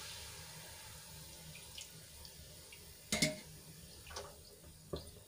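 Gram-flour sev frying faintly in hot oil as it is lifted out with a perforated metal spoon, then a sharp clink of the spoon against the kadai about three seconds in and two lighter knocks after, with oil dripping back into the pan.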